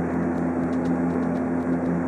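Turboprop airliner's engines and propellers in cruise, heard inside the cabin: a steady drone of a few low tones over a broad rush of airflow noise. The lowest tone throbs about three times a second.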